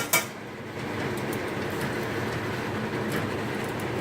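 Steady rushing background noise in a kitchen, with two sharp clicks right at the start.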